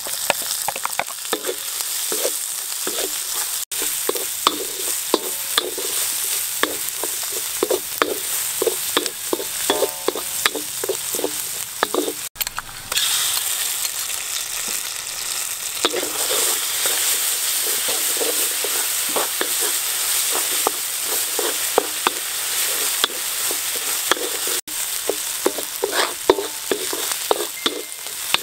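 Chopped garlic, chillies and spring onion sizzling in hot oil in a wok, with a spatula scraping and knocking against the pan several times a second as it is stirred.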